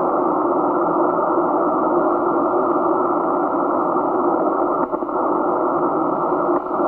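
Shortwave receiver hiss and static on the 80 m band, heard through a narrow CW filter as a steady band of noise, with two brief dips near the end.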